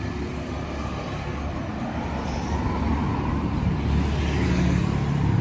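A motor vehicle running on the street over a low traffic rumble. Its engine grows louder and nearer over the last couple of seconds.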